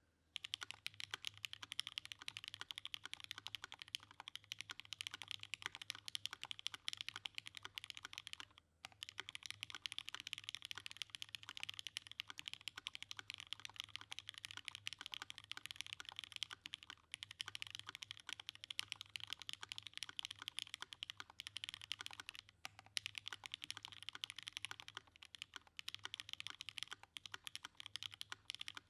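Continuous fast typing on a custom mechanical keyboard fitted with lubed Cherry MX Red Hyperglide linear switches on a UHMWPE plate, gummy O-ring mount and GMK keycaps. There is a dense run of key clacks with a brief pause about nine seconds in.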